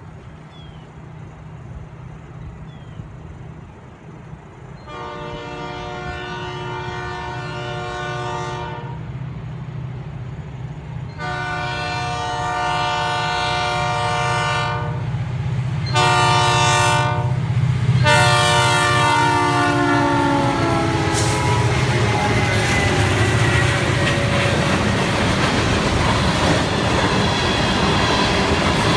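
A freight train led by an SD40-2 diesel locomotive nears a road crossing while its engine rumble builds. The air horn sounds the crossing signal, long, long, short, long, and the last blast drops in pitch as the locomotive passes. The cars then roll by with steady wheel clatter.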